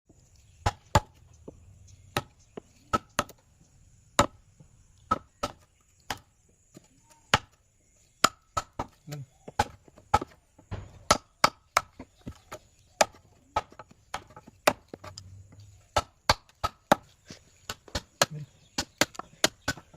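Repeated sharp knocks of a hand tool striking wood, coming irregularly at about one to three a second, each with a short ring.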